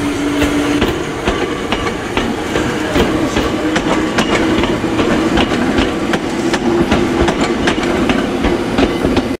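Ex-Tokyu electric train (car 7305) departing and passing close by, its wheels clicking and clattering over rail joints in quick irregular succession, with a steady hum beneath.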